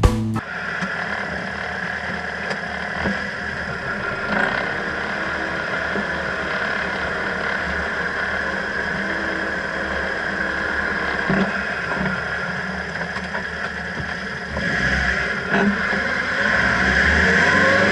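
A 1995 Subaru Sambar kei truck's small four-cylinder engine running while the truck drives, with a steady whining hum over the engine noise that the owner puts down to the wheel hubs. The sound grows louder about fifteen seconds in and again near the end.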